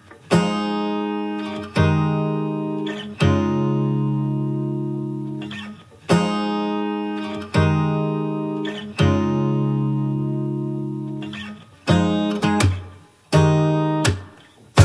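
Background music: strummed acoustic guitar chords, each left to ring and fade, a new chord every second or so with a few quicker strums near the end.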